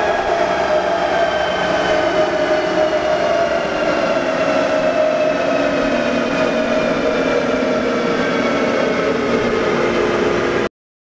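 Chassis dyno rollers and the truck's drivetrain spinning down after a pull: a loud, steady mechanical rumble with several whining tones that fall slowly in pitch, cut off abruptly near the end.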